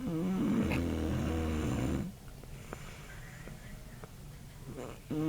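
A sleeping person snoring loudly: one snore about two seconds long, a pause, then the next snore beginning near the end.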